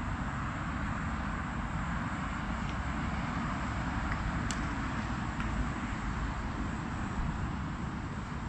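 Steady outdoor background noise with a low rumble. A few faint sharp clicks sound through it, the clearest about four and a half seconds in.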